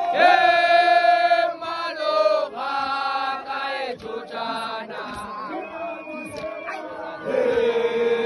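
A crowd of men chanting a traditional Setswana song together, in phrases of long held notes; the singing swells loudest at the start and again near the end.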